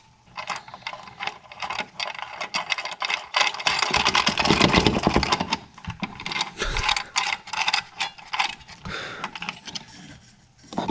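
Hand socket ratchet clicking as the fog-light bracket bolt is tightened: a long run of quick metallic clicks, loudest and densest about four to five seconds in.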